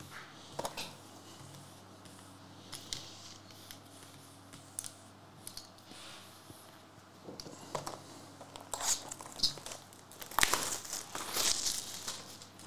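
Light taps and rustles of paper cards being laid on a table mat. From about eight seconds in, crinkling and tearing of wrapping as the card box is opened, loudest near the end.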